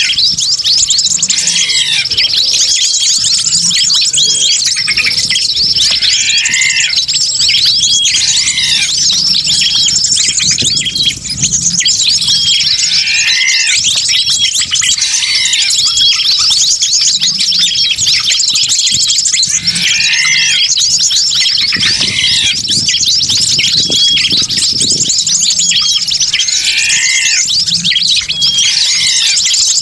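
Bird-lure recording: a dense, continuous chorus of many small wild birds chirping and twittering at once. A lower call that falls in pitch recurs every couple of seconds.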